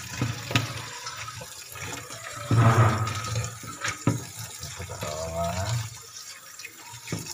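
Tap water running into a stainless steel bowl of chopped papaya flowers in a sink, with hands swishing and rubbing the flowers in the water; the splashing gets louder about two and a half seconds in, with a few light knocks against the bowl.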